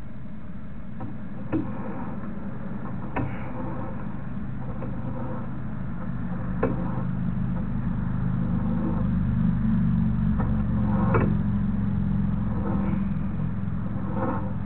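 Steady low engine-like hum that swells around the middle and then eases off, with a few sharp clicks and knocks scattered through it.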